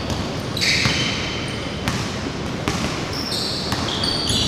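Basketball being dribbled on a hardwood gym floor, a few sharp bounces about a second apart, with short high-pitched squeaks of sneakers on the court.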